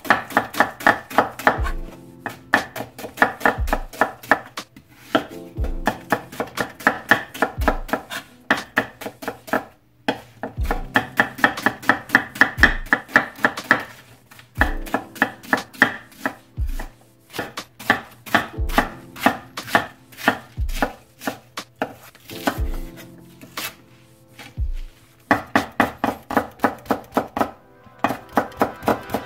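Chef's knife slicing an onion on a wooden cutting board: rapid runs of knife strokes tapping the board, several a second, broken by short pauses. Near the end the knife switches to slicing green chili peppers.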